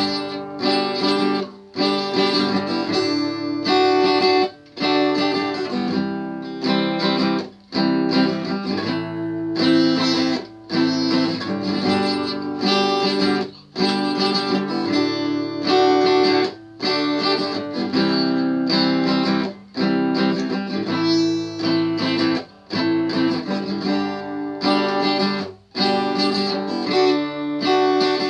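Acoustic guitar playing strummed chords in a steady pattern, with a brief drop in sound about every three seconds at the chord changes.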